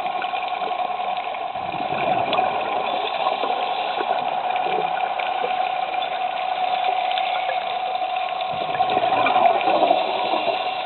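Steady underwater noise picked up through a dive camera's housing, with scattered faint crackles. It swells a little about nine seconds in.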